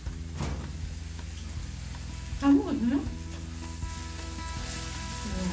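Beef sizzling on a round griddle pan over a gas burner, steady throughout, with a short vocal sound about two and a half seconds in. Faint music comes in during the second half.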